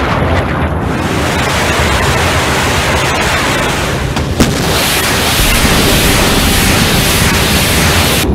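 Truck-mounted multiple rocket launchers firing a salvo: a continuous loud rushing roar of rocket motors, with one sharp crack about four seconds in.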